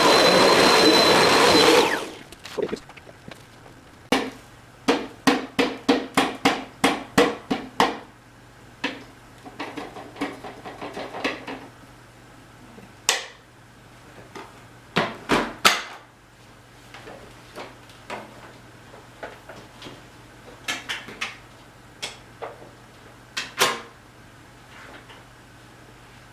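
Vacuum cleaner running with a steady high whine, switched off about two seconds in; then a quick run of sharp clicks and knocks, roughly two a second, followed by scattered single knocks.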